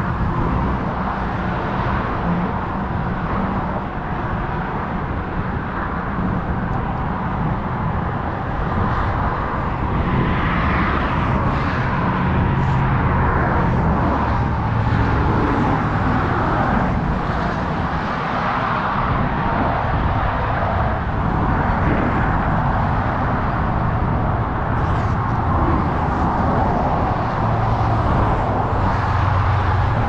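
Steady road traffic noise from vehicles passing on the highway: a continuous rumble and hiss with no single event standing out.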